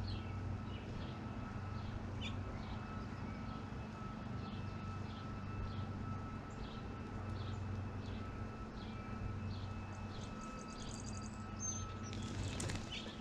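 Backyard birds chirping: one bird repeats a short chirp over and over, and a quick high trill comes about eleven seconds in, over a steady low hum.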